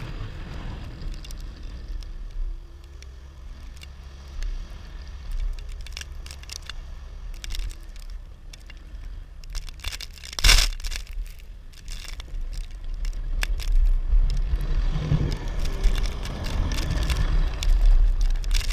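Skid steer engine running with a steel-edged snow plow blade scraping and crunching through snow, full of crackles. There is a sharp knock about ten seconds in, and the scraping grows louder near the end.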